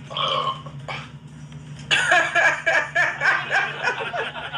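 A woman burping from a stomach full of carbonated soda: a short burp at the start, then a longer, louder one from about two seconds in.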